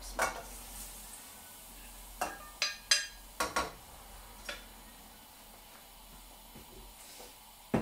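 Raw chicken pieces tipped from a plate into a stainless steel saucepan and pushed around with a wooden spoon: a handful of sharp knocks and clinks of plate and spoon against the pan, most of them about two to four seconds in.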